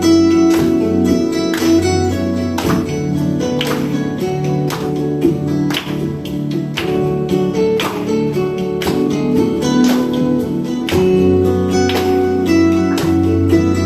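Guitar music, chords struck at a steady, even pace.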